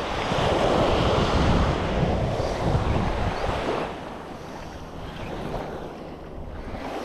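Small surf waves washing onto a sandy beach, with wind buffeting the microphone; the rushing is louder for the first four seconds, then eases.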